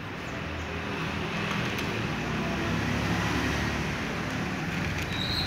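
Steady low background rumble that slowly grows louder, with a short high tone near the end.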